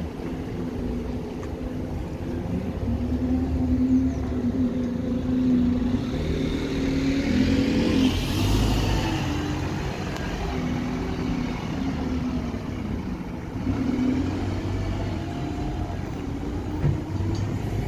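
Single-deck bus driving past at low speed, its engine note shifting in pitch as it pulls through the turn. There is a louder rush of noise about halfway through as it passes closest.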